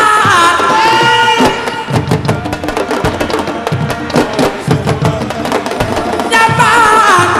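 Live music: a lead voice singing a wavering, ornamented melody over drums. The voice drops out about a second and a half in, leaving the drums playing alone, and comes back near the end.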